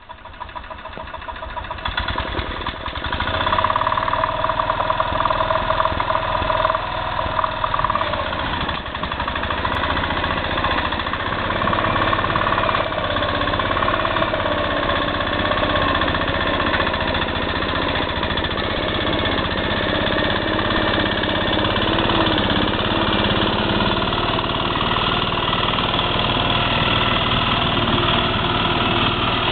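1977 Arnold Ferret tractor's engine running steadily as the tractor pulls a trailer loaded with spruce logs. It grows louder over the first few seconds, then holds an even, loud running note.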